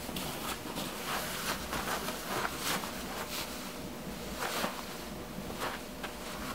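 Rustling and soft scuffs of a sneaker being pulled on by its heel tab and feet shifting on carpet, irregular short strokes over a steady hiss.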